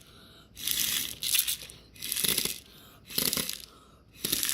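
Hard puffs of breath blown into a homemade pen-tube BB blowgun fed from a pill bottle, about four rushing blasts roughly a second apart.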